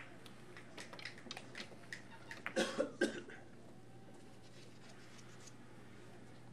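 Carom billiard balls clicking against each other and the cushions, a quick irregular run of sharp knocks, followed by two short coughs a little later.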